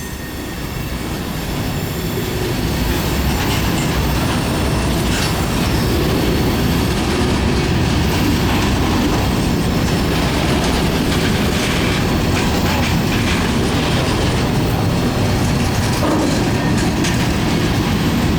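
Freight train rolling steadily past, with its cars rumbling and clattering over the rail joints and some wheel squeal.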